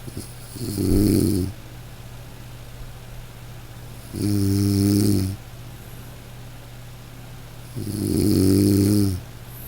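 A person snoring: three snores, each about a second long, coming roughly every three and a half seconds over a steady low hum.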